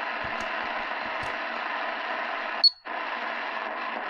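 Shortwave static hissing from the speaker of a Realistic DX-380 portable radio, with faint taps of its keypad buttons in the first second. About two and a half seconds in, a short high beep sounds as 4845 kHz is entered, and the audio cuts out for a moment while the radio retunes, because it mutes on tuning. Then the static returns.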